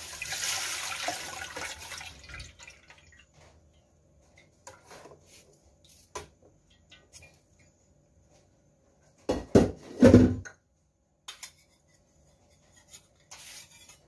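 Water poured from a plastic tub into a metal wok, splashing for about two seconds and then tailing off. After that come light clinks of a metal skimmer against the wok, and a few loud knocks about nine to ten seconds in.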